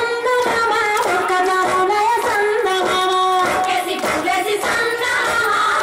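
Bathukamma festival song: a high voice singing long, bending notes over music.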